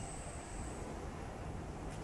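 Low, steady outdoor background rumble with a faint hiss, without any distinct events.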